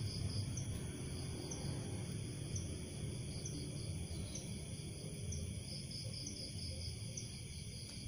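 Night insects: a steady high-pitched cricket trilling with a short chirp repeating about once a second, over a low rumbling noise.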